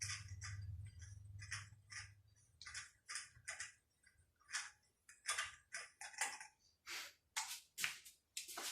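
Ratchet wrench clicking in short strokes as a nut on the Range Rover's front suspension arm is loosened, about one to two clicks a second and quickening near the end. A low hum runs under the first few seconds.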